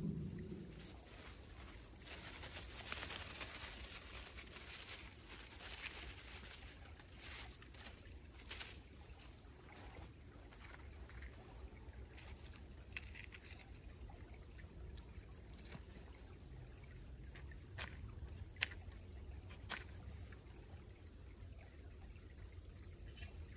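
Creek water trickling and running steadily, with a few short sharp clicks about three-quarters of the way through.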